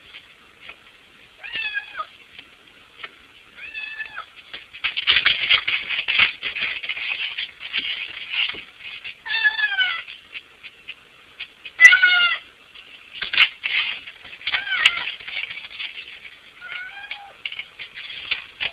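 A domestic cat meowing again and again, about six meows in all, each falling in pitch; the loudest comes about twelve seconds in. In between there are stretches of scratching and scraping against the window, the longest from about five to eight seconds in, as the cat paws at the frame trying to get in.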